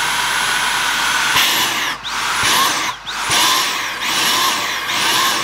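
Dyson V7 Motorhead cordless vacuum running in max mode with a high whine. From about a second and a half in, the motor pulses, its pitch dropping and climbing back about once a second. The repairer thinks it is meant to pulse like this when the intake is really blocked.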